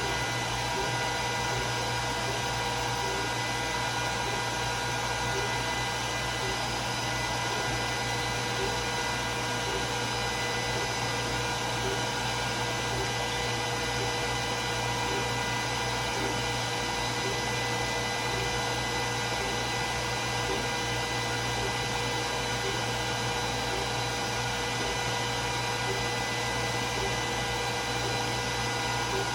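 Glowforge Plus laser cutter running a cut job: a steady fan whir carrying several steady tones, with faint, evenly spaced ticks.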